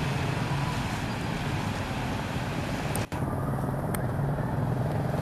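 Steady low hum of a running motor vehicle engine mixed with an even background noise, with a momentary dropout about three seconds in.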